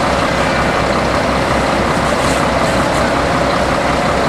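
A heavy vehicle's diesel engine running steadily close by, giving a low, even throb with a steady hum over it.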